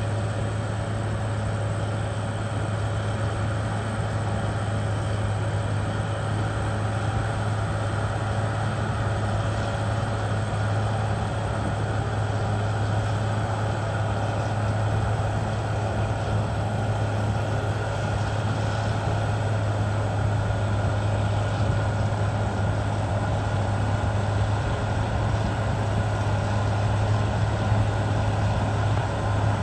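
Caterpillar D6R XL bulldozer's diesel engine running steadily with a constant low hum.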